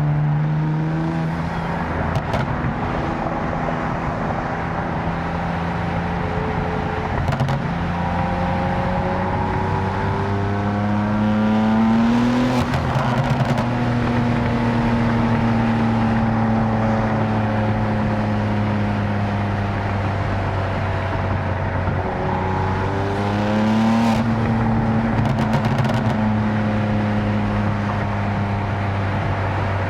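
Tuned 750 hp BMW M4's twin-turbo inline-six heard from inside the cabin with the windows down, pulling up through the revs twice, about 12 and 24 seconds in, and between the pulls cruising with the pitch slowly falling. A few sharp exhaust cracks, most of them around the second pull.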